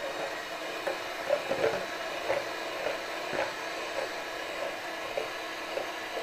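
Electric hand mixer running steadily on its lowest speed, its beaters churning chilled liquid whipping cream at the start of whipping. Occasional light clicks sound over the steady motor hum.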